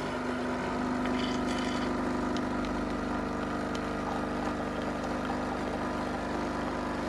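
Single-serve coffee machine's pump running with a steady buzzing hum while coffee streams into a ceramic mug.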